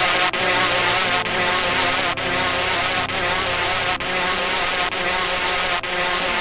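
Loud, buzzing electronic music: a low line steps between notes under a dense, droning layer, with a short dip in level a little under once a second.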